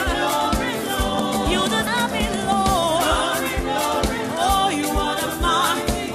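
Gospel praise music: singing with wavering, sustained notes over a band with a steady drum beat.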